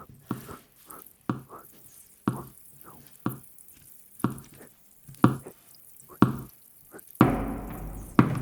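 Rhythmic knocks or taps: one loud hit about once a second with softer ones between. About seven seconds in, a louder, fuller sound comes in.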